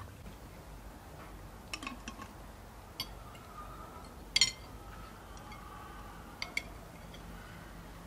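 Cutlery and dishes clinking at a meal table: a few scattered sharp clinks of spoons against plates and glasses, the loudest about four and a half seconds in.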